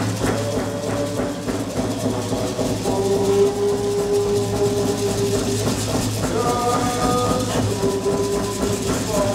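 Several long, steady whistle-like tones at different pitches, sounding together and in turn, over a constant low hum and hiss. A few drumbeats trail off in the first second.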